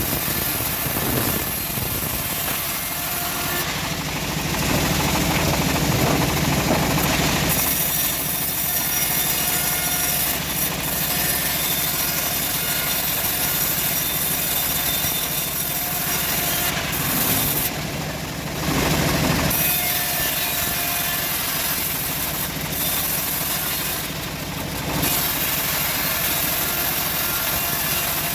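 Homemade bandsaw sawmill running and sawing through an old teak log, a steady mechanical din that swells louder twice, around five to seven seconds in and again around eighteen seconds in.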